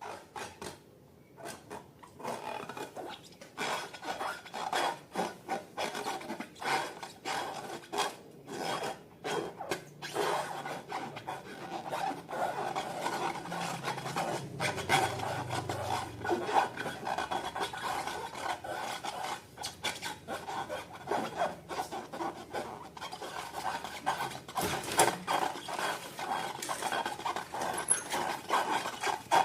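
Slime being mixed and worked by hand or spatula: a continuous run of small sticky clicks, crackles and rasping scrapes.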